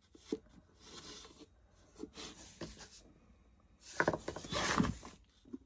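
Rubbing and scuffing against the edges of a wooden cigar box while antique gold Rub 'n Buff wax is worked on, with a few light knocks from handling the box. The rubbing is loudest for about a second, around four seconds in.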